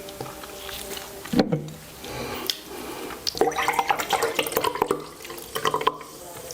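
Close-up liquid sounds, water moving and splashing, with a sharp knock about a second and a half in and a dense run of small wet clicks in the second half.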